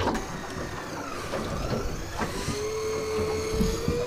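Electric deep-drop fishing reel winding line up with a fish on: a steady motor whine that gets stronger and rises slightly in pitch in the second half, with a few light knocks.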